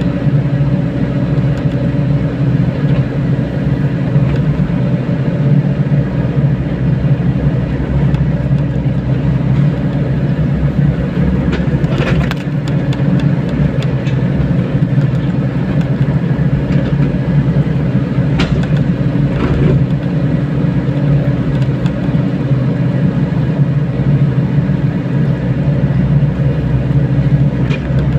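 Mini excavator's diesel engine running steadily under load, with a few sharp knocks about twelve seconds in and again around eighteen to twenty seconds.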